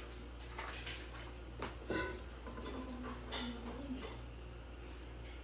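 A few light clinks of kitchenware with brief ringing, the clearest about two seconds in and another about three and a half seconds in, over a low steady hum.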